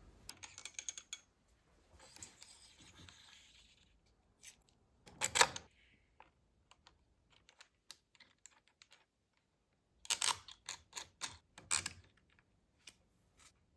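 Metal locking bars and hold-down bars being handled and fitted into the jig's tracks: scattered clicks and taps, a sliding scrape about two seconds in, a sharp clack about five seconds in, and a quick run of clicks and knocks about ten seconds in.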